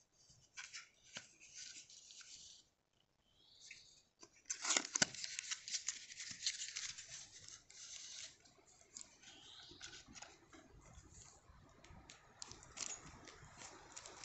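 Rustling and crinkling of a paper incense box and the thin wrapper around a bundle of incense sticks as they are slid out and handled. There are small clicks and taps throughout, and a denser, louder rustle about four and a half seconds in.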